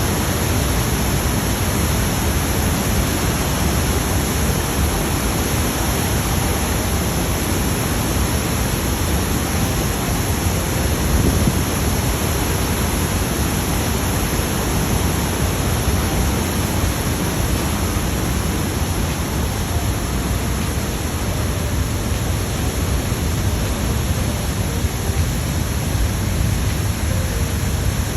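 Steady rushing noise of a large waterfall, even and unbroken.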